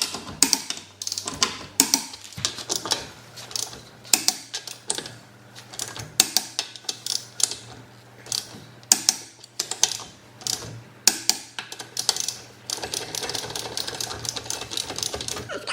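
Irregular sharp metallic clicks and clacks of hand tools working on a car wheel during a tyre change, with a denser rattling stretch near the end.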